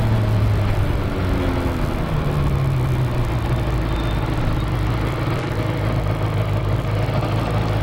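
Motorcycle engine running steadily while riding along a street, picked up by a camera mounted on the bike, with wind noise on the microphone. The engine note rises briefly about two seconds in and settles back.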